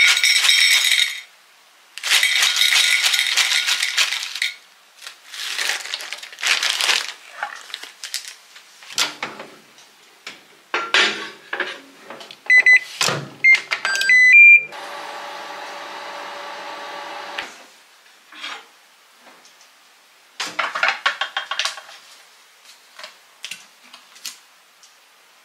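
Plastic bag crinkling in several bursts as cut okra is shaken out onto a plate, then a microwave oven's keypad beeping several times and the oven running with a steady hum for about three seconds. Near the end come more crinkling and a few light clicks.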